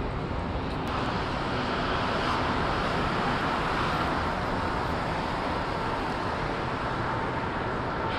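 Steady rumbling hum of a Montreal Metro train standing at the platform with its doors open, heard in the echoing underground station.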